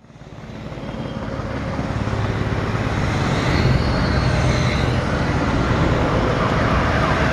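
A heavy diesel engine running with a deep low rumble, growing louder over the first few seconds and then holding steady.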